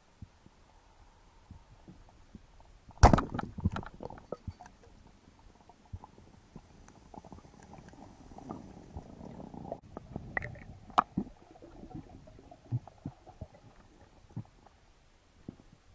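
Muffled underwater sound through an action camera's waterproof housing during a freedive: a low murky rumble with scattered clicks and knocks. A loud sharp knock with a flurry of clicks comes about three seconds in, and the rumble swells for a few seconds in the middle.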